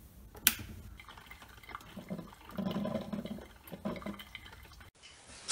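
Mr. Coffee drip coffee maker: a sharp click of its switch, then the machine gurgling and sputtering in uneven bursts as hot water is pushed up to brew.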